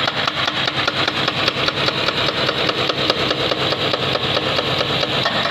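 Diesel engines of construction machinery, a backhoe loader and an excavator, running with a fast, even clatter of about six or seven knocks a second.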